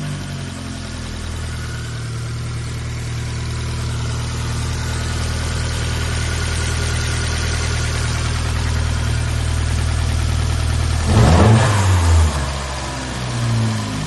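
Dodge Dart Aero's 1.4-litre turbocharged four-cylinder, fitted with a new cold air intake and open cone filter, idling steadily. About eleven seconds in it is revved once sharply, pitch rising and falling back, and it is blipped lightly again near the end.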